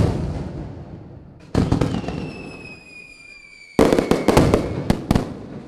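Fireworks going off: three loud bangs about a second and a half and two seconds apart, each dying away. A thin whistle slowly falls in pitch after the second bang, and a quick run of sharp cracks follows the third.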